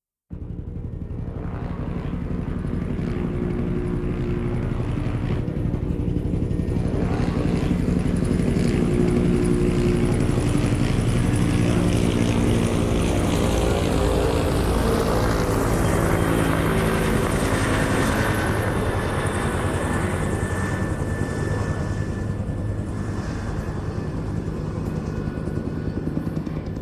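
Helicopter in flight: a rapid beat of the rotor blades with engine whine over it. It starts suddenly, grows louder over the first several seconds, peaks around the middle as the whine bends in pitch, then eases off slightly.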